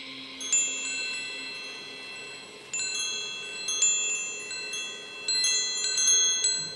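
Hanging metal-tube wind chime ringing: its tubes are struck in several small clusters, each clear high note ringing on and overlapping the next.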